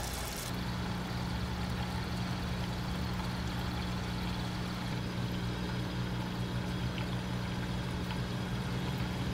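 Aquarium pump humming steadily: a low, even electric hum with several overtones.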